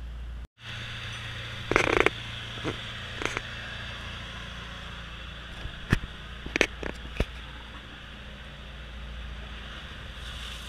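A motor boat's engine running steadily, with scattered sharp knocks and clatters, the loudest cluster about two seconds in.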